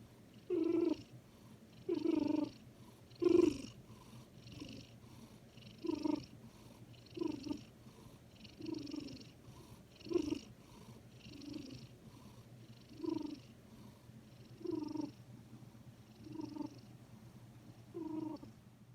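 Sleeping house cat making a short, squeaky pitched sound with each breath, about one every second and a half in a steady rhythm. It is a sleep noise that the owner cannot tell apart from snoring.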